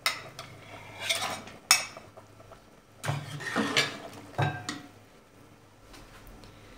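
A metal spatula clinks and scrapes against a plate and the rim of an aluminium pressure cooker as raw beef chunks are pushed into the broth, with a few sharp clinks in the first two seconds. Stirring and scraping in the pot follow from about three seconds in, then it goes quiet.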